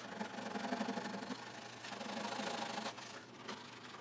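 Hand flush-trim saw cutting off eastern red cedar plugs flush with a western red cedar board, a quick back-and-forth rasping of short saw strokes that pauses briefly about three seconds in.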